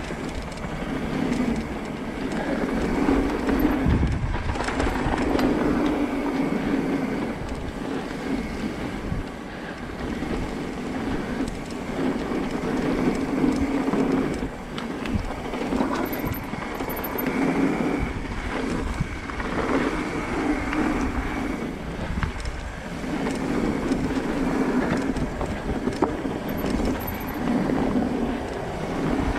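A bicycle rolling over a rough gravel track: a continuous rumble of tyres on gravel with rattling from the bike, swelling and easing every second or two.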